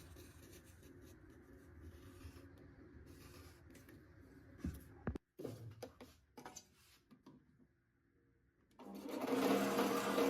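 Quiet rubbing and handling noises with a few sharp knocks around the middle, then a short lull and an electric power tool starting about nine seconds in and running loudly with a steady hum.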